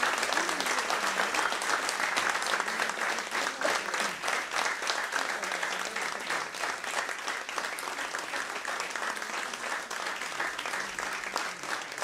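Audience applauding, dense clapping that eases off a little toward the end.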